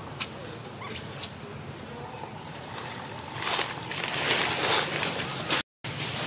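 Dry fallen leaves rustling and crackling under a walking macaque's feet, louder from about three and a half seconds in. A brief high squeak comes about a second in.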